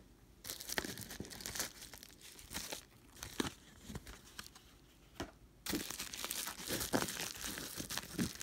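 Bubble wrap crinkling and crackling as it is handled and lifted out of a box. Scattered crackles at first, then denser, louder crinkling from about two-thirds of the way in.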